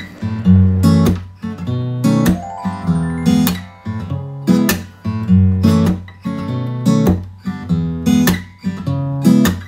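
Acoustic guitar background music, strummed chords in a steady rhythm.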